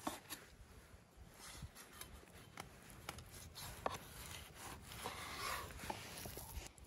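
A large knife slicing through a raw lamb fat tail on a wooden cutting board: quiet cutting with a few light ticks, and a soft rubbing stretch about five seconds in.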